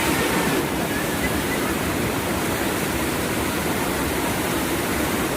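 Steady rushing water, like a waterfall, a loud unbroken roar across all pitches that eases slightly about half a second in.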